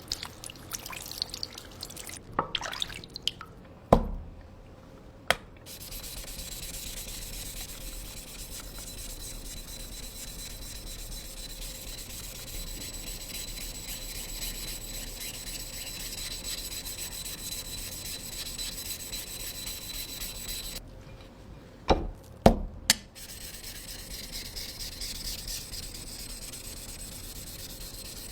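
A blade being sharpened on a wet whetstone: a long, steady rubbing of steel across the stone. At the start there are a few drips and small taps; a sharp knock comes about four seconds in, and a cluster of knocks about twenty-two seconds in, as the blade or stone is shifted.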